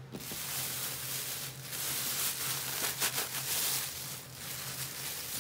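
Thin plastic flour bag crinkling and rustling as hands grip and handle it, with sharper crackles about one and a half and three seconds in. A steady low hum runs underneath.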